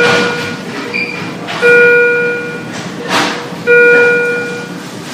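Electronic alarm tone in a hospital emergency department, sounding three times about two seconds apart. Each is a steady pitched beep of about a second that fades, heard over background din, with a short rustle or clatter about three seconds in.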